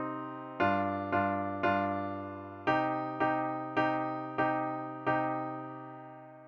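Piano playing full chords, struck one after another about twice a second: three, a short gap, then five more, the last left to ring and fade away near the end.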